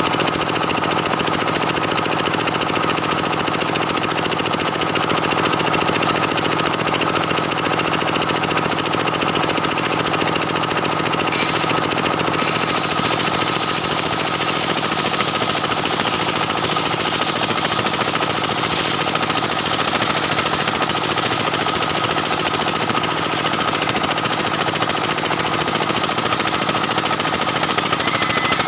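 Stihl 070 two-stroke chainsaw running steadily under load, ripping lengthwise along the grain of a dense jackfruit-wood beam. It turns brighter and hissier about twelve seconds in.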